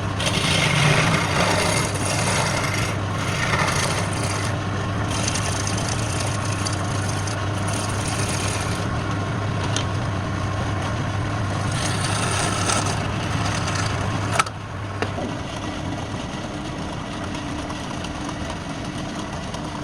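Wood lathe motor running steadily while a tool scrapes against the spinning wood with a rough, rasping hiss. About fourteen seconds in, the scraping stops with a sharp click and the lathe keeps running more quietly.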